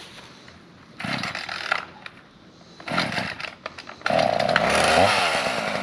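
Small gasoline engine pull-started: two short pulls that don't catch, then it starts about four seconds in and runs steadily, revving up briefly a second later.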